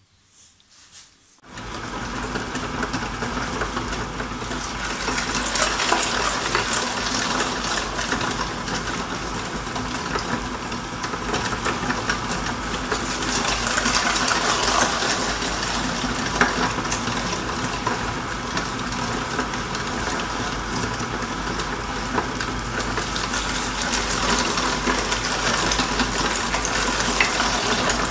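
Electric motor-driven meat mincer, belt-driven through a large pulley, starting suddenly about one and a half seconds in and then running steadily with a low hum, grinding raw chicken necks with bone.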